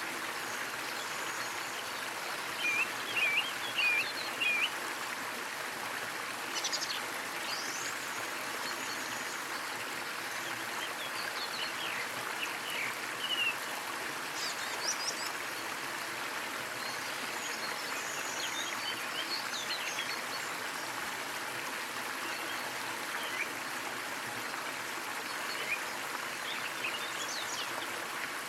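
Small waterfall splashing steadily, with scattered short bird chirps over the water: a quick run of several chirps a few seconds in, then single calls every few seconds.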